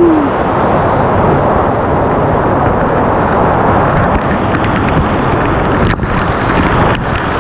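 Loud, steady rush of fast-flowing creek water in a rain-swollen canyon.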